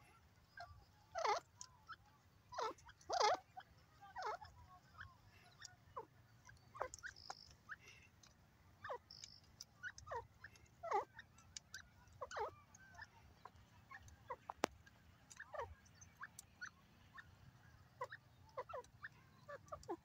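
Grey francolin giving short, soft chirping calls at irregular intervals, a few every second or two, the loudest in the first few seconds.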